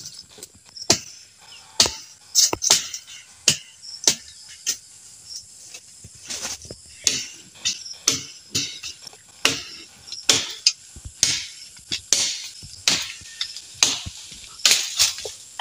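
Brush being cleared by hand: irregular sharp cracks and snaps of woody stems and vines, about one or two a second, with leaves thrashing after each. A faint steady insect trill runs underneath.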